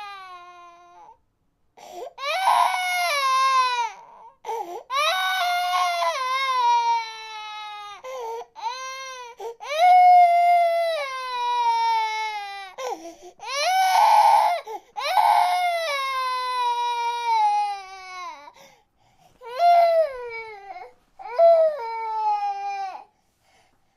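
An infant crying: a series of loud wails, each falling in pitch over a second or two, broken by short gasping pauses.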